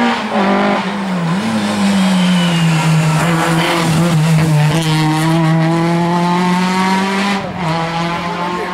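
Historic rally hatchback's engine running hard at high revs, its pitch sagging through a tight bend and then climbing steadily as the car pulls away. The pitch dips again near the end.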